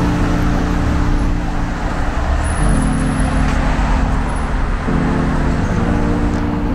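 Cars driving past on a city road: steady traffic noise of engines and tyres. Beneath it run sustained low music chords that change every couple of seconds.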